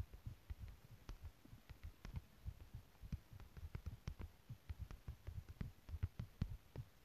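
Fingertips tapping on a smartphone touchscreen while typing on the on-screen keyboard, picked up by the phone's own microphone: irregular soft thuds, several a second, some with a faint click.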